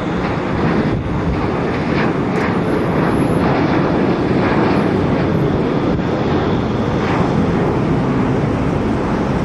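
Boeing 737 jet engines at takeoff power: a loud, steady rush and rumble that swells slightly in the middle, with some wind on the microphone.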